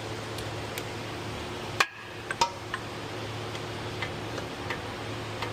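A few sharp metallic clicks and taps of hand tools against engine parts, the loudest about two seconds in, over a steady low hum.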